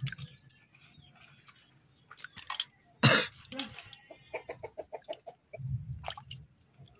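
A chicken clucking: a loud squawk about three seconds in, then a quick run of clucks. Small sharp clicks of snail shells being cracked open by hand.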